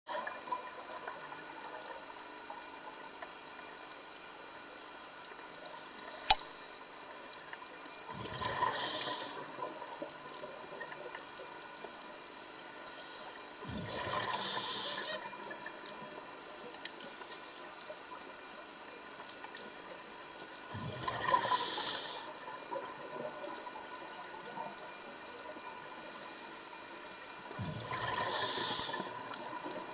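Scuba regulator exhaust underwater: bubbles rush out in four exhalations about six to seven seconds apart. A single sharp click comes about six seconds in.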